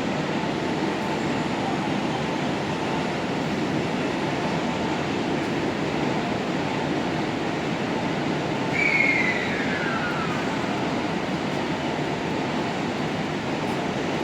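E259 series Narita Express electric train at a station platform, with a steady rolling rumble, and a brief falling squeal about nine seconds in.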